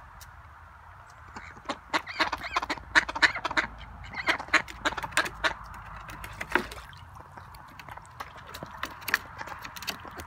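Ducks quacking in quick strings of short calls, starting about a second and a half in, with a lull after the middle and a few more quacks near the end.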